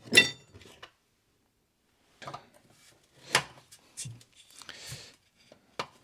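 Small metal parts being handled: a steel washer clinks with a short ring at the start, then scattered light clicks and scraping as a steel shaft and washers are worked against the reel mower's drive roller.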